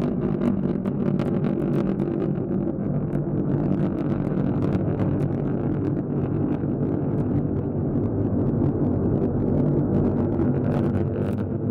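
Proton-M rocket's first-stage engines in flight: a steady, deep roar with a dense crackle.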